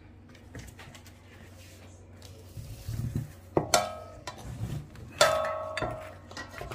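Metal kitchenware being handled and set down: two sharp clinks about a second and a half apart, each ringing briefly, with soft rustling and handling sounds between.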